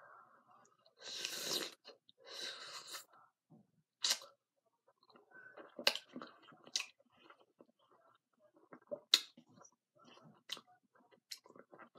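A person biting and chewing food close to the microphone: a loud bite about a second in, then scattered short clicks and smacks of chewing.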